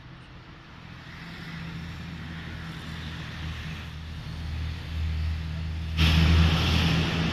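ChME3 diesel shunting locomotive running, its low steady engine note growing louder as it approaches. About six seconds in, a sudden loud rush of noise joins it.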